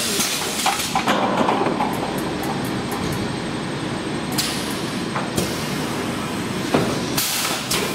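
Semi-automatic PET bottle stretch blow moulding machine cycling: steady machine noise with sharp clanks of the pneumatic mould and valves. Two hissing blasts of compressed air, one about halfway through and one near the end, as the blowing air is let out of the mould.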